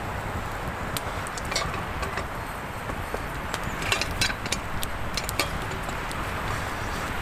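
Campfire of small sticks burning, with sharp crackles and pops that come thicker about four seconds in, over a steady rushing noise.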